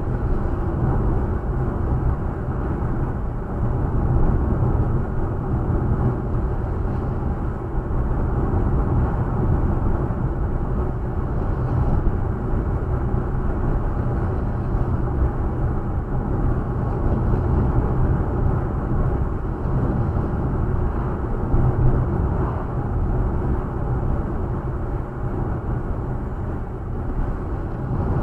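Car driving steadily on an open country road, heard from inside the cabin: a continuous low rumble of tyres and engine with no sudden events.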